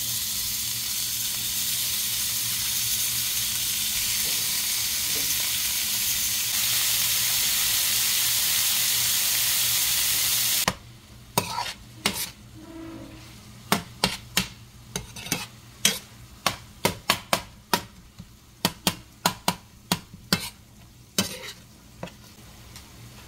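Raw ground beef frying in hot oil in a stainless steel skillet, a steady sizzle that cuts off suddenly about ten seconds in. After that a metal spoon knocks and scrapes against the pan in quick, irregular clacks as the browning meat is broken up and stirred, over a much fainter sizzle.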